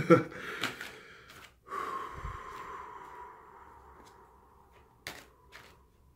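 A long, slow breath blown out through pursed lips, starting about two seconds in and fading away over several seconds with a faint steady whistle in it. Near the end come two light clicks.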